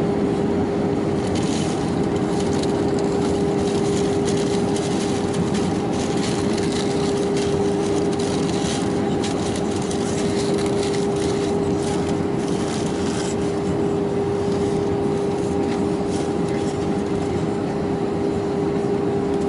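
Airbus A319-111 cabin noise on approach with flaps extended: the CFM56 engines and the airflow over the airframe make a steady rush with a constant droning tone.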